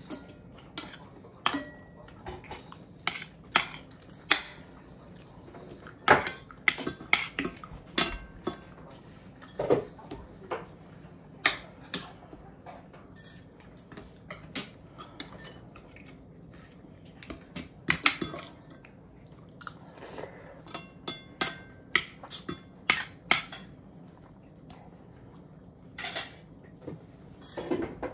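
Metal forks and spoons clinking and scraping against ceramic dinner plates during a meal: irregular sharp clinks, a few ringing briefly.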